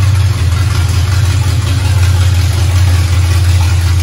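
Lifted truck's engine idling with a steady, deep rumble.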